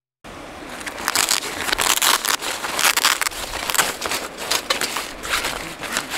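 Dark fabric storage case rustling and crinkling as hands pull it off a folding wire grill, with many short scraping and crackling strokes.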